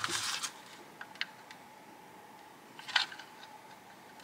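Hard plastic rear air vent units of a VW Passat B8 being handled and fitted against each other: a few light plastic clicks and knocks, the sharpest about three seconds in, over a faint steady hum.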